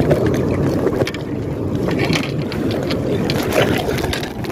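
Sea water sloshing and splashing close to the microphone around a floating inflatable inner tube, with wind buffeting the microphone.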